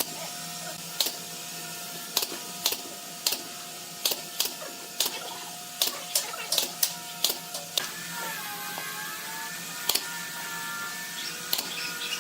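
A series of irregular sharp knocks and clicks, some close together in quick pairs and runs, over a faint steady hum.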